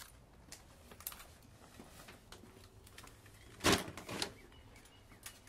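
Footsteps and small clicks on stone steps, then a paper delivery bag rustling as it is set down on a doorstep in two short bursts, about three and a half seconds in.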